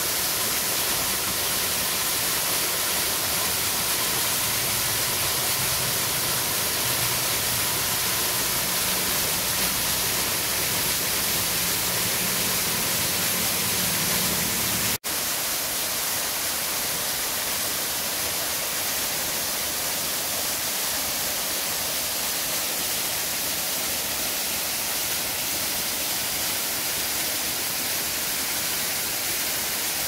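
Small waterfall splashing into a rocky pool: a steady rush of falling water. The rush drops out for an instant about halfway through.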